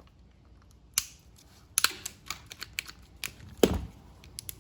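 Hand cutters snipping and clicking on small microwave parts and wires: a few sharp snaps, the loudest about one, two and three and a half seconds in, with lighter ticks between. The cutters are ones he reckons must be getting dull.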